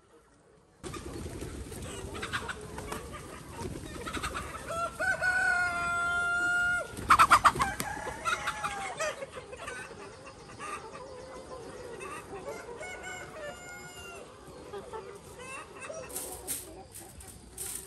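Domestic fowl calling, with many short clucks and one long held call about five seconds in, followed by a brief burst of loud sharp knocks, the loudest part.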